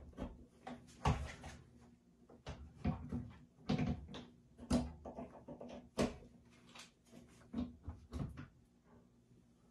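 Irregular knocks, clicks and rustles of hands handling a power cord and plug, with the cable knocking against the pipe, over a faint steady hum.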